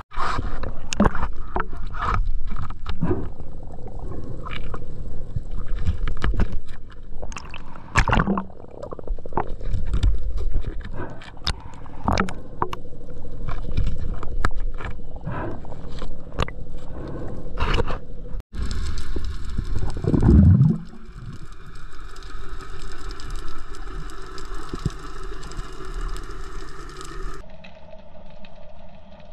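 Underwater sound picked up by a diver's camera: irregular clicks, knocks and water noise over a low rumble. Then, after a brief cut, a falling whoosh and a steady drone made of several even tones.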